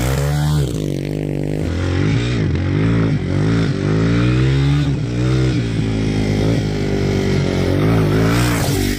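Yamaha TW200's single-cylinder four-stroke engine revving up and down over and over as the bike is ridden off-road.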